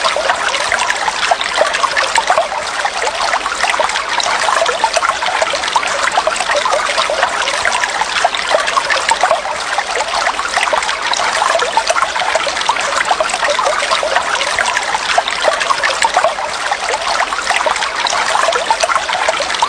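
Running water trickling and splashing steadily, a dense, unbroken patter of small splashes.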